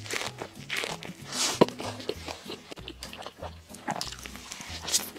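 Close-miked biting and chewing of a crisp flatbread: a string of crunchy bites with one sharp crunch about one and a half seconds in, over background music with a repeating bass line.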